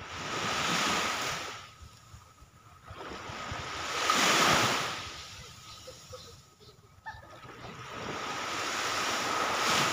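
Small sea waves breaking and washing up the beach in three rushes of surf, each swelling and fading, the loudest about four seconds in.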